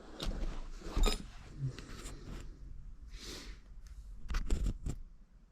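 Light clicks, knocks and clinks of hands handling a motorcycle's plastic bodywork and tools, with a cluster of sharper knocks near the end and a brief hiss in the middle.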